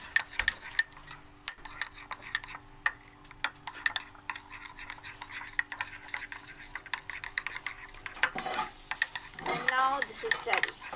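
Metal spoon stirring thick chili ketchup sauce in a glass bowl, clicking and scraping against the glass in quick, irregular ticks.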